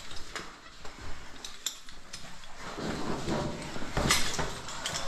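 Footsteps and scuffs of a caver moving over the cave floor, with irregular knocks and rustling of clothing and gear, busiest near the end with one louder knock about four seconds in.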